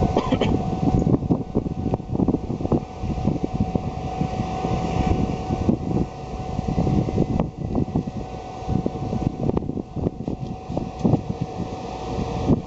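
Taiwan Railways train running through a level crossing: a steady, uneven rumble and clatter with a constant tone held under it.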